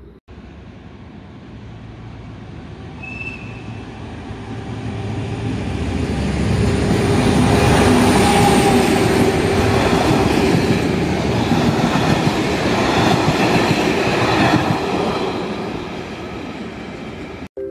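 Freight train of tank wagons hauled by a diesel locomotive passing through the station without stopping. The rumble and wheel clatter build up, are loudest in the middle as the train goes by close at hand, then ease off as the last wagons roll past, with a faint wheel squeal.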